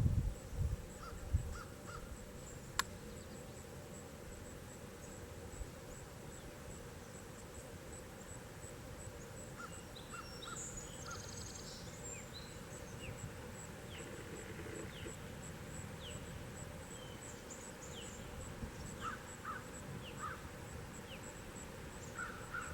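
Outdoor ambience with several birds calling: brief repeated notes, a short trill about ten seconds in, and quick downward chirps through the second half, over a steady soft hiss and a fast, even high ticking. A few low thumps at the start.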